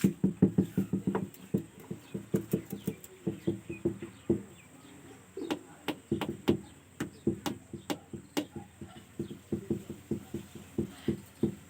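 A parrot making a rapid run of short, low notes, several a second, with a brief pause around the middle.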